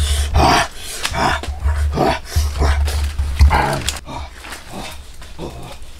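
An animal growling and grunting in short repeated calls, about two a second, over a deep steady hum; the calls grow fainter about four seconds in.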